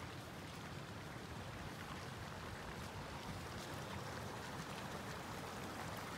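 Shallow stream of water running over slate and grass: a steady, even hiss.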